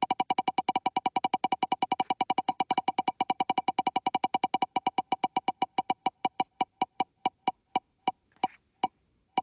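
Selection wheel spinning, its ticker clicking: about eight quick ticks a second at first, slowing steadily to a tick every second or so as the wheel comes to rest.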